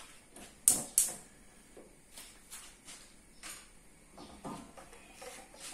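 Kitchen clatter: two sharp knocks about a third of a second apart near the start, then scattered faint taps and a short burst of clinking a little past the middle.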